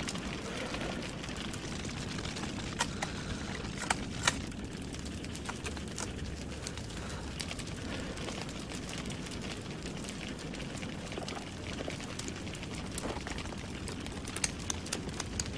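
Steady low background rumble with scattered short clicks and knocks, a few sharper ones about three to four seconds in and a small cluster near the end.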